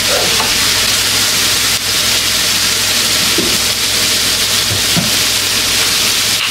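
Beef burger patties frying on a hot electric griddle: a steady sizzle.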